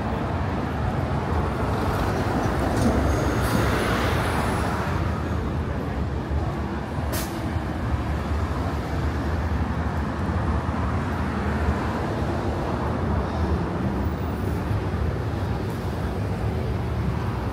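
City street traffic: a steady low rumble of passing engines and tyres, with a louder hissing swell a few seconds in and a single sharp click about seven seconds in.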